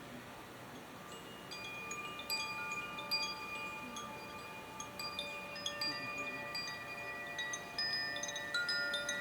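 Chimes ringing: many clear, bell-like notes struck at irregular moments, each ringing on and overlapping the others, growing a little busier and louder toward the end.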